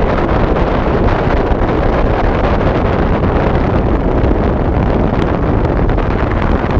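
Wind buffeting the microphone of a camera on a moving motorcycle: a steady, loud rush of noise with the bike's road and running noise underneath.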